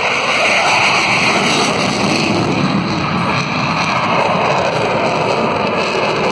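F/A-18 Super Hornet's twin General Electric F414 jet engines running at full power as the fighter pulls up into a steep maximum-effort climb: a loud, steady jet roar.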